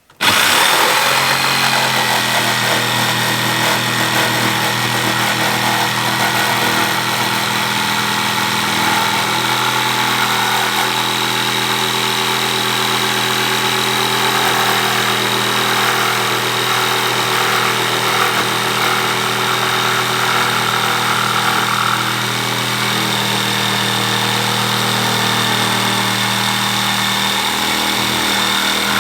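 Electric jigsaw cutting through a treated 2x6 board: a steady motor whine with a low hum, starting abruptly and changing slightly in pitch about nine seconds in and again past twenty as the load on the blade shifts.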